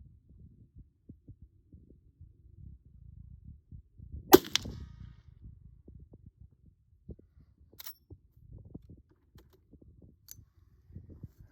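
A single shot from a Henry Big Boy .44 Magnum lever-action rifle about four seconds in, with a short ring after it. Two faint clicks come later.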